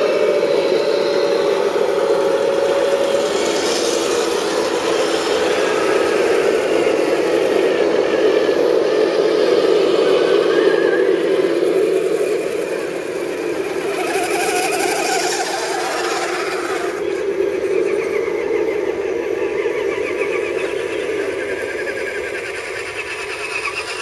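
Scale RC 4x4 trucks driving through a muddy puddle, their small electric motors and geared drivetrains whining steadily, with a few stretches of higher hiss.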